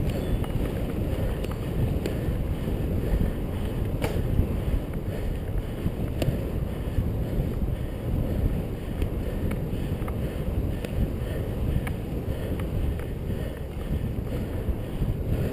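Steady low wind rumble buffeting a helmet-mounted GoPro HD Hero's microphone while moving along a road, with a few faint ticks.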